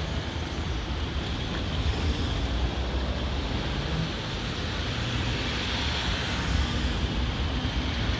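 Steady outdoor rumble with wind buffeting the microphone, heavy and uneven in the low end, with no distinct events.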